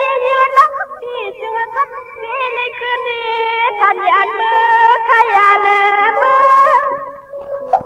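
A high voice singing an old Shan song in long, sliding, ornamented phrases over instrumental accompaniment, with a few sharp percussion strokes about five to six and a half seconds in; the singing dies away near the end.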